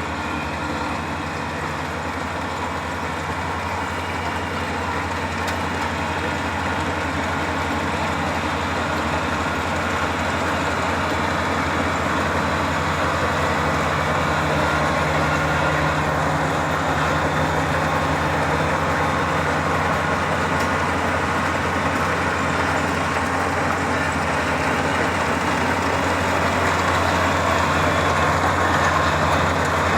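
Kubota DC-35 combine harvester running steadily, its diesel engine humming under the noise of the machine, gradually growing louder.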